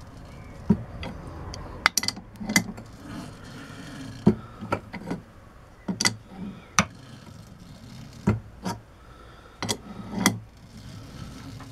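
A 5/8 UNF tap cutting a thread into a cast-iron hand wheel's hub by hand, the lathe chuck turned in short pulls with a large adjustable wrench. Low scraping with irregular sharp clicks and creaks.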